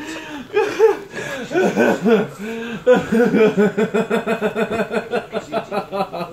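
A man laughing in a long fit: uneven giggling at first, then about halfway through a steady run of short 'ha' bursts, about five a second.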